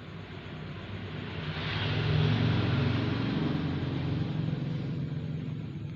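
A motor vehicle passing by: engine and road noise swell to a peak about two seconds in, then fade slowly.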